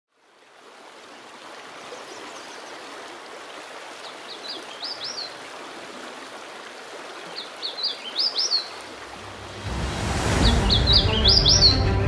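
A small songbird sings the same short, high phrase three times over a steady rushing of stream water that fades in at the start. About ten seconds in, music swells in with a whoosh and deep, sustained low notes.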